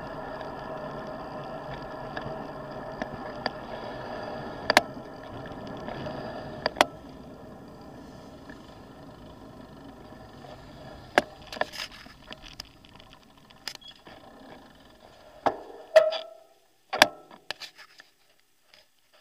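A road bike rolls along a bike lane with a steady whirring rolling noise, and sharp knocks and rattles come through the handlebar-mounted camera over bumps. The noise fades as the bike slows, and it stops about two thirds of the way in, leaving only scattered clicks and a few louder knocks.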